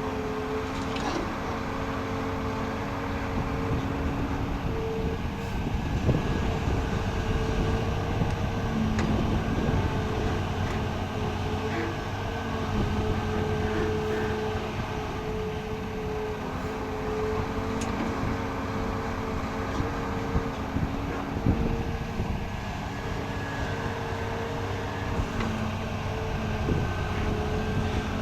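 Excavator engine running steadily, with its pitch shifting a few times as the load changes, and a few short knocks.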